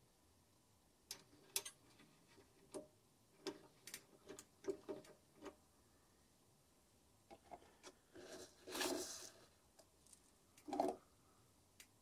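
Faint, irregular clicks and small knocks, with a short rustle about nine seconds in and a sharper knock near the end.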